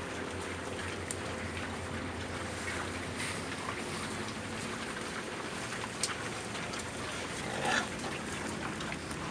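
Pig pen sounds: pigs grunting and shuffling over a steady low hum, with a few sharp clicks and one short, louder pig call about three quarters of the way through.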